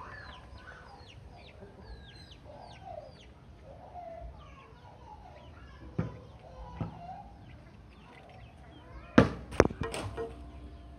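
Chickens clucking with high, quick chirps throughout, and a volleyball being struck by hand: one knock about six seconds in, then two louder sharp slaps near the end.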